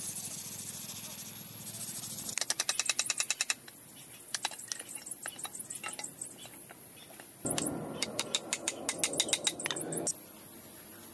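Hand chisel cutting into wood: runs of quick sharp taps, about ten a second, with scattered single taps between them, over a steady high-pitched whine.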